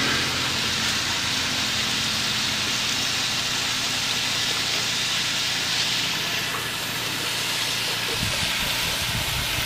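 Chicken masala frying in a wok over a gas burner: a steady sizzling hiss with a low rumble underneath. A few low bumps near the end.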